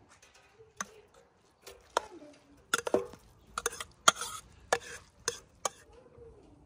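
Metal skimmer spoon knocking against a steel cauldron as cooked saffron rice is spooned into it: a string of sharp, irregular clinks.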